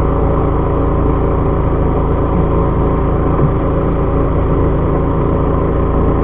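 Fishing boat's engine running steadily: a constant low drone with a steady hum.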